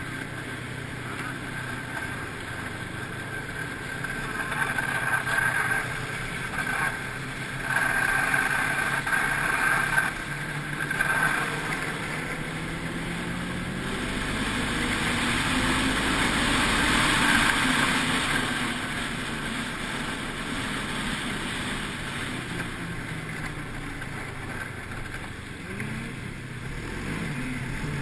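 Snowmobile engine running under way, its pitch rising and falling with the throttle. It surges several times in the first half and builds to its loudest a little past the middle.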